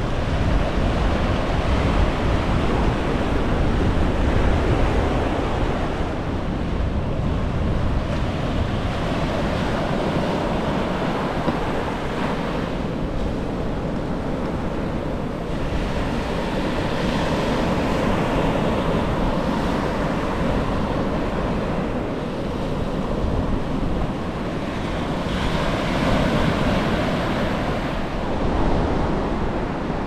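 Small sea waves breaking and washing up a sandy beach, the surf swelling and easing every few seconds, with wind rumbling on the microphone.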